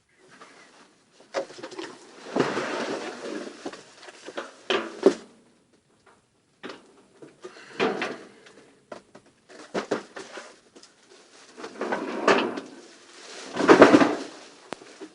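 A cardboard box and its packaging being handled and opened: irregular bursts of rustling and scraping, with a few sharp knocks.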